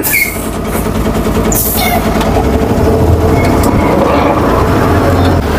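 Diesel truck engine running as the truck pulls away, a loud low rumble with the cab rattling, growing louder about halfway through. Two short hisses come near the start.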